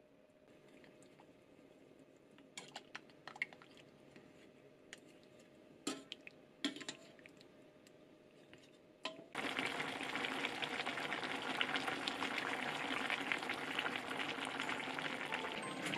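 A wooden spoon and metal ladle clink and scrape a few times in a steel pot of soup as a paste is stirred in the ladle. About nine seconds in this changes suddenly to the loud, steady bubbling hiss of a pot of nikujaga stew simmering.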